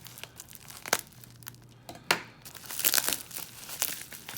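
Wrapping being unwrapped by hand from a padlock: crinkling and crackling, with some tearing, sharp crackles about one and two seconds in and the densest crinkling around three seconds in.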